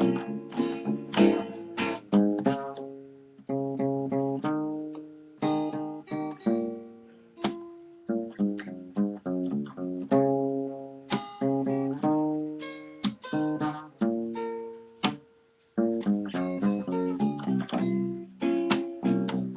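Nylon-string acoustic guitar (violão) playing a samba accompaniment, with chords plucked and strummed in a syncopated rhythm. The playing briefly stops about sixteen seconds in, then resumes.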